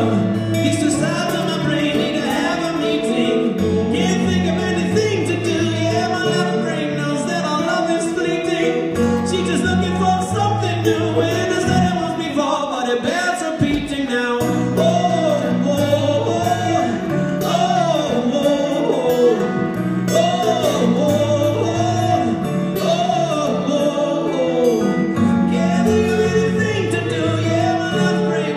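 A man singing with a steel-string acoustic guitar in a live performance; the guitar chords change every second or two under the vocal line.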